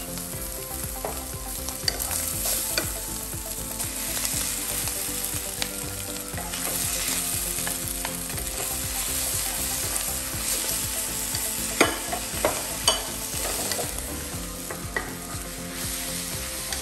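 Stir-fry sizzling steadily in a hot non-stick frying pan, with a wooden spatula scraping and knocking against the pan as the food is tossed; a few sharper knocks come about twelve seconds in.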